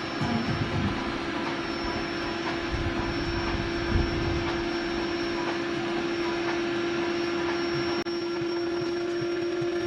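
Built-in electric air pump of a Camp Master queen-size airbed running steadily with a constant hum, inflating the mattress. A few soft low bumps come in the first few seconds.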